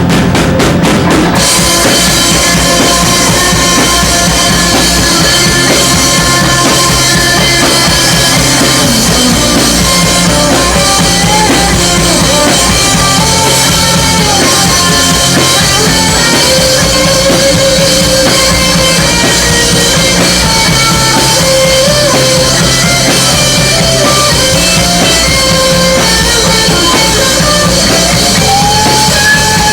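Live rock band playing loud and steady: a full drum kit with kick and snare under bass and a wavering melodic lead line.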